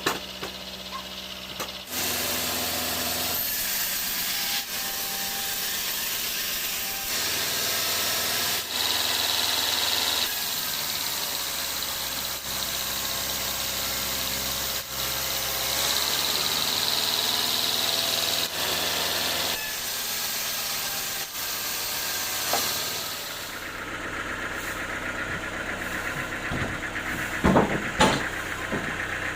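Sawmill machinery running: a steady engine drone with saw noise, a high whine coming and going, and the sound changing abruptly every few seconds. A few sharp knocks near the end.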